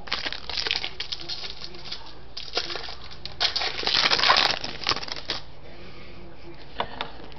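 Baseball cards and their pack wrapper being handled: crinkling and rustling with small clicks and taps, in a longer crinkling stretch around the middle.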